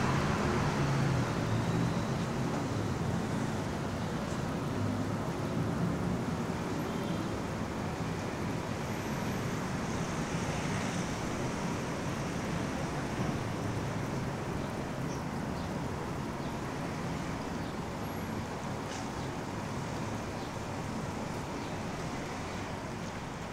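Steady city street traffic noise, a continuous wash of passing cars, slowly fading down towards the end.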